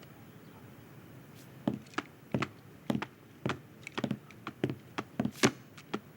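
A run of about a dozen light, irregular taps and knocks on wood, starting under two seconds in, with the loudest knock near the end.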